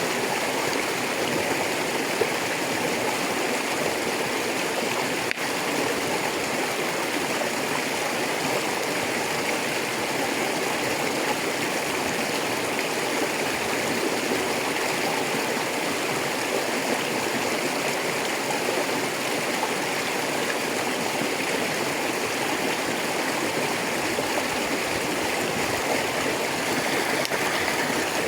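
Shallow river running over rocks, a steady rushing and gurgling of flowing water.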